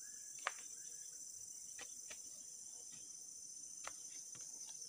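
Steady high-pitched insect chorus, crickets or cicadas, with a few short sharp knocks over it, the loudest about half a second in. No chainsaw is running.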